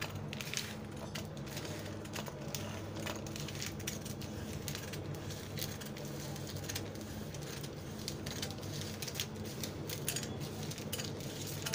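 Scissors cutting through a thin, glossy red plastic sheet: a run of irregular crisp snips with the film crinkling, over a steady low hum.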